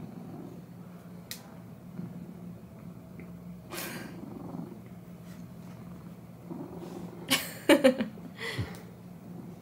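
A domestic cat purring steadily, with a rustle about four seconds in. Near the end comes a short, loud cat vocalization with sliding pitch.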